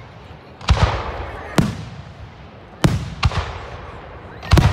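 Aerial firework shells bursting in a quick series of sharp bangs, about six in all, with two coming close together near the end. Each bang trails off in a fading rumble and crackle.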